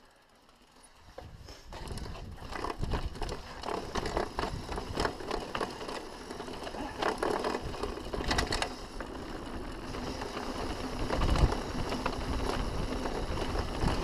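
Mountain bike rattling down a stone-paved path: tyres drumming over the stones and the bike's frame and chain knocking and clattering. It starts almost silent and builds to a steady, irregular rattle about two seconds in.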